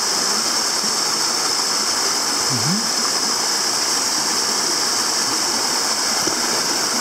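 Small mountain stream rushing and splashing over rocks, a steady, unbroken flow; the water is running somewhat high after a typhoon's rain.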